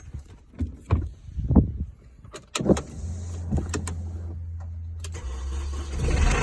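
A few knocks and clicks, then a steady low hum from about three seconds in. Near the end the 2005 Mini Cooper S R53's supercharged four-cylinder engine starts and gets louder.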